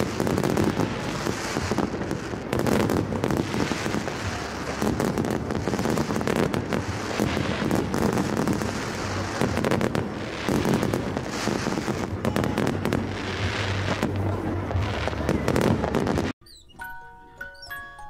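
Fireworks going off densely, a continuous barrage of crackles and bangs with music underneath. About sixteen seconds in it cuts off suddenly and a light chiming melody begins.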